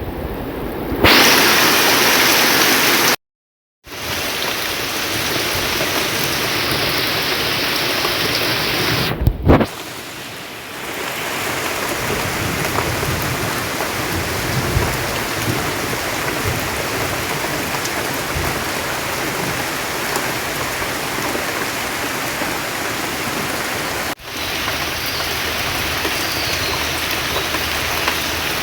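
Steady rain falling and pattering on surfaces, with a sudden short silent gap about three seconds in and a few abrupt breaks where the sound jumps.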